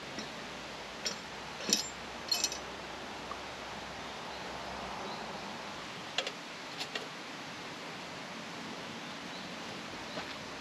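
Steady background hiss with a few short, light clicks and knocks: a cluster in the first two and a half seconds and a pair about six to seven seconds in.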